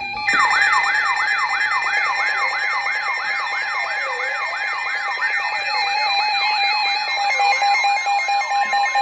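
Electronic siren starting abruptly out of silence and yelping rapidly, about three pitch sweeps a second. A slower wail and steady alert tones are layered underneath, used as an emergency alert signal.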